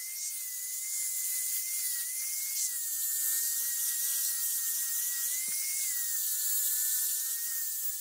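Angle grinder with an abrasive sanding pad running against a steel hammer head: a steady high whine over a hiss. Its pitch dips slightly about a third of the way in and again near the two-thirds mark.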